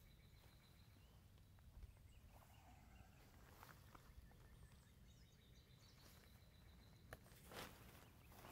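Near silence: faint bird chirps in the distance, with soft rustles and clicks of nylon tent fabric being handled, and one louder brush of fabric about seven and a half seconds in.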